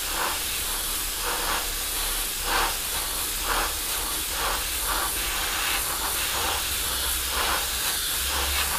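Airbrush spraying Tamiya XF-1 flat black at quite a high pressure: a steady hiss of air and paint with slight surges about once a second.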